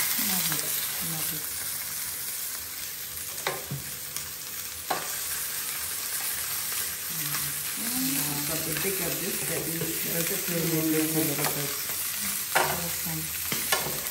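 Oxtail pieces sizzling steadily as they brown in hot oil in a pot. A few sharp clicks of metal tongs against the pot come as the meat is turned.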